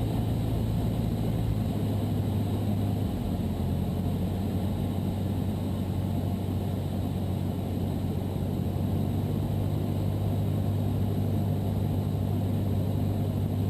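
Cessna 172's piston engine and propeller running at a steady drone, heard from inside the cabin.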